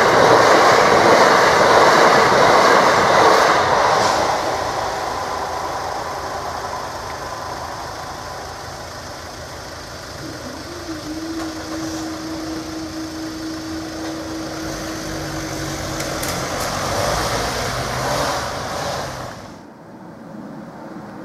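Class 375 Electrostar electric multiple unit passing over a level crossing at speed, loudest for the first four seconds and then its rumble fading away. A steady hum comes in about ten seconds in and stops about six seconds later.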